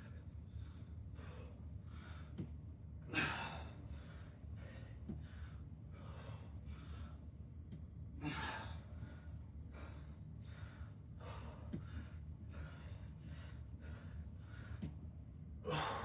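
A man breathing hard and fast after a strenuous exercise set: rapid, regular breaths, with three louder gasping exhales about three, eight and sixteen seconds in.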